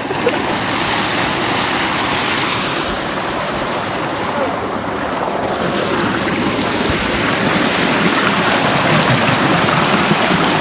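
Water gushing from a tubewell's discharge pipe into a concrete tank, a steady heavy rush and splash of churning water.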